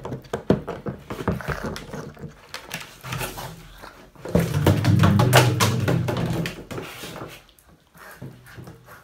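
An empty plastic water-cooler jug knocking and scraping on a tile floor as a Boston terrier drags and shoves it by the handle, with a louder stretch of rumbling and scraping a little over four seconds in.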